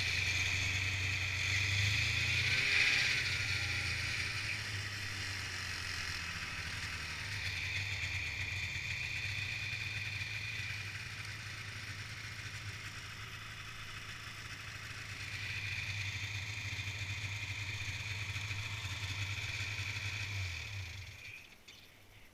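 Snowmobile engine running at low speed as the sled creeps along, with a steady hum and a hissing whine over it that rise and fall with the throttle. The engine sound cuts off about a second before the end.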